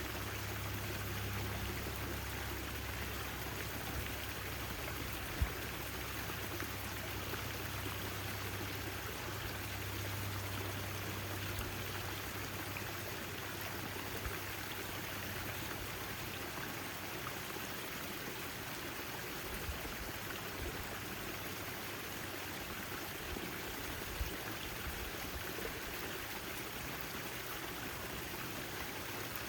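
Backyard fountain: water splashing and trickling steadily.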